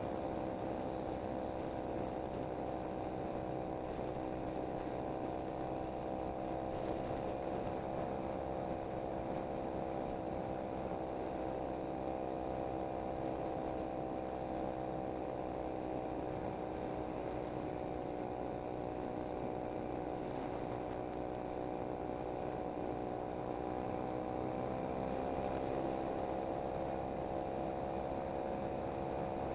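SSR 125cc pit bike's single-cylinder four-stroke engine running steadily under way, holding an even note; the pitch rises slightly near the end.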